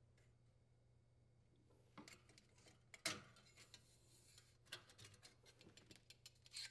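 Faint metal clicks and light scraping as a sheet-metal heater shield is pried free of its retaining tabs with a flat-blade screwdriver and lifted off an aluminium evaporator. There are several scattered clicks, the loudest about three seconds in.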